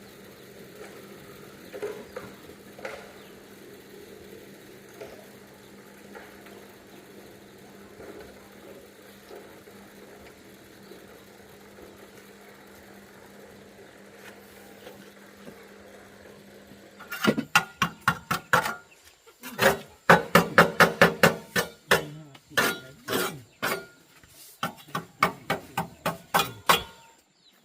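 A quiet stretch with a low steady hum, then, about seventeen seconds in, a long run of loud, sharp knocks at about four a second, broken by short pauses.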